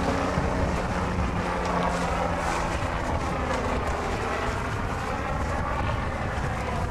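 A small fishing boat's engine running steadily while under way, with heavy wind buffeting the microphone.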